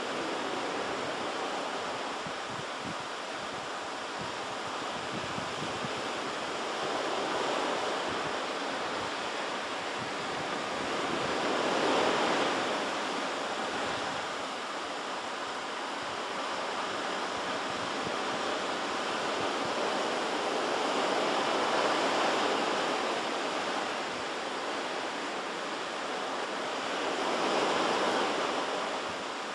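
Pacific Ocean surf: waves breaking and washing ashore in a steady rush that swells and fades every several seconds.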